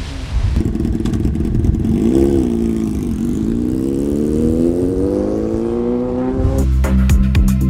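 Sport motorcycle engine blipped once, then pulling away with its pitch climbing steadily as it accelerates. Electronic music with a heavy beat comes in near the end.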